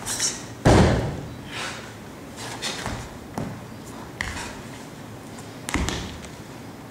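Foot stamps on the floor during a Chen-style Tai Chi form: a loud heavy stamp just under a second in and another near the end, with lighter thuds and short swishes of movement between.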